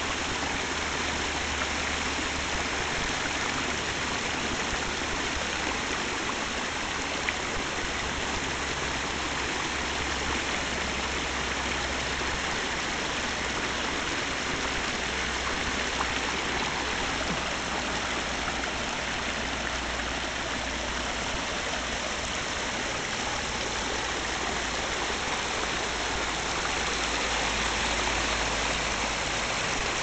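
Water from a backyard pondless waterfall spilling over boulders and a log and running down a shallow gravel stream bed: a steady, even rush of splashing water.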